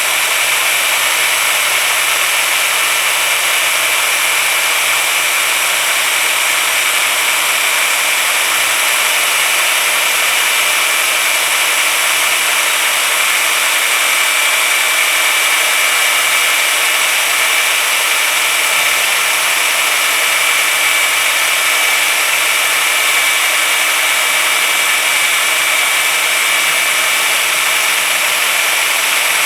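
Power drill running steadily with a polishing pad, working Brasso polish over metal: a continuous motor whine with a high steady tone over a rushing hiss, unbroken throughout.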